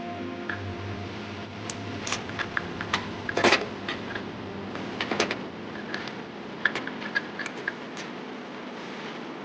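Irregular metallic clicks and knocks of parts and hand tools being handled, the loudest about three and a half seconds and five seconds in, over a steady low hum.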